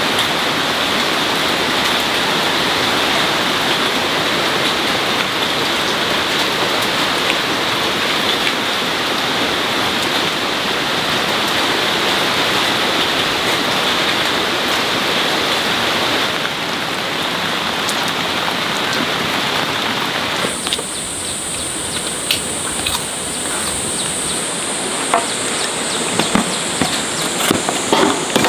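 Rain falling steadily, an even hiss of drops. About twenty seconds in it gives way to a quieter background with a steady high-pitched whine and scattered sharp knocks.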